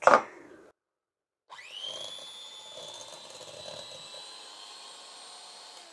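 Electric hand mixer switching on about a second and a half in, its motor whine rising quickly and then running steady as the beaters whisk cream cheese and sugar.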